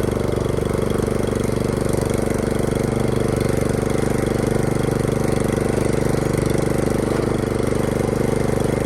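Vehicle engine running at a steady speed with an even pulsing beat.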